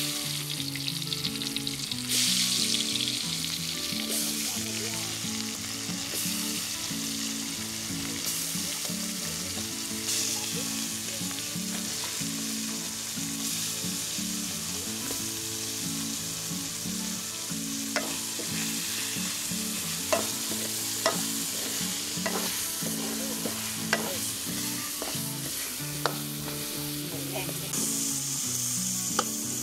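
Marinated chicken pieces frying in hot oil in a large metal wok over a wood fire, sizzling steadily; the sizzle grows louder about two seconds in. Stirring with a metal ladle, with a few sharp clicks in the second half.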